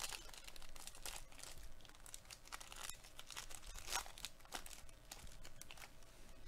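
Thin foil wrapper crinkling and tearing as hands peel it open from around a trading card: a quiet run of crackles, with a louder crackle about four seconds in.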